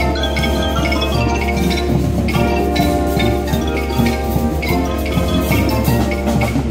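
Live school brass band playing: trumpets, trombones and other brass holding chords over a drum kit keeping a steady beat.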